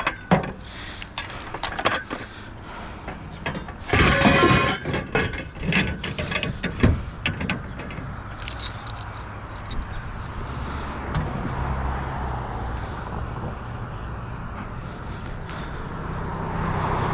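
Scattered knocks and rattles with a louder clattering rush about four seconds in, then the steady rush of passing road traffic.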